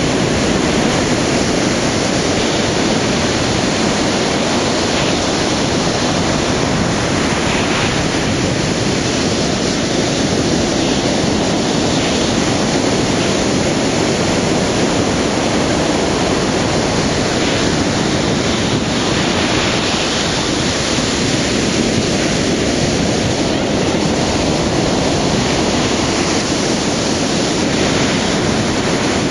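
Ocean surf: waves breaking and washing in as a loud, steady rush with no single break standing out.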